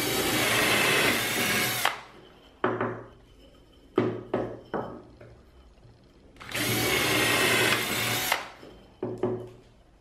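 Power drill with a twist bit boring a hole into the end of a small wooden block: two runs of about two seconds each, with several short bursts of the drill in between.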